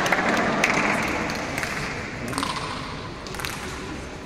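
A few scattered light clicks of a table tennis ball bouncing, over a murmur of voices that slowly dies away.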